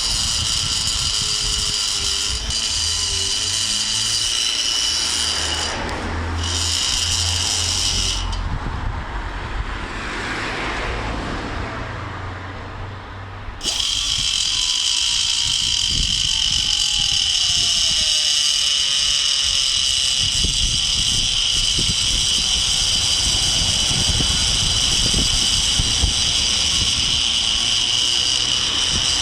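Die grinder running with a steady high whine as it grinds an old cast iron cylinder head. It stops for about five seconds around a third of the way in, then starts again suddenly and runs on.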